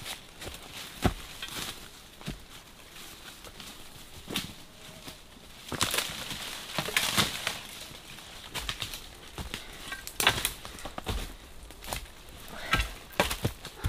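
Footsteps crunching over dry bamboo leaf litter and brushing through forest undergrowth, in an irregular walking rhythm with louder bursts of rustling partway through.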